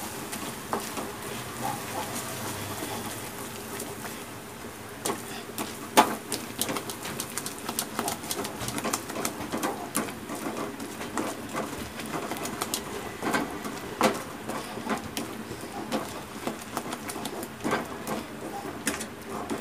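Wooden spatula stirring grated coconut through thick cooking jaggery syrup in a stainless steel kadai: irregular scrapes and knocks of wood against the steel pan, the loudest about 6 and 14 seconds in.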